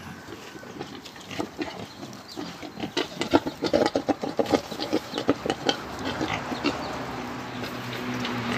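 Pigs grunting in a pen, a run of short, irregular grunts.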